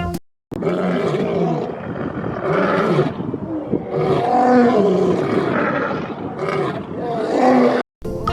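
Lion roaring and growling, a dubbed-in animal sound effect: a series of loud roars with wavering pitch, cut in and out abruptly.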